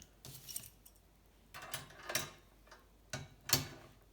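Metal tool clicking and scraping in three short clusters as the spreading tool between a steel bike frame's rear dropouts is worked to cold-set the rear triangle wider.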